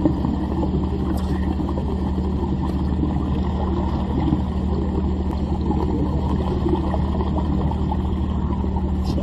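A steady, loud, low mechanical hum that runs unbroken, with a few faint clicks.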